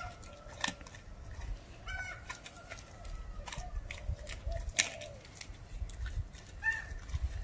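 German shepherd puppy chewing a raw chicken quarter: repeated crunches and clicks of teeth on bone and wet chewing. A couple of short chirping calls sound in the background.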